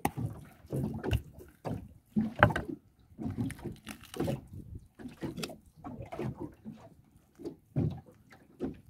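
Water slapping and knocking against the hull of a small fishing boat at sea, in irregular splashes about every half-second to a second.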